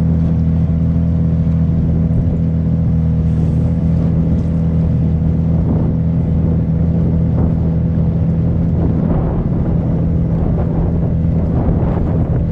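Engine of a motorised wooden pirogue running at a steady, unchanging pitch as the boat crosses the river, with water rushing along the hull growing louder in the second half.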